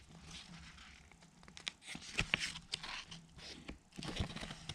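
Pages of a large picture book being turned and handled: faint paper rustling with a few short crackles, the loudest around two seconds in and again near the end.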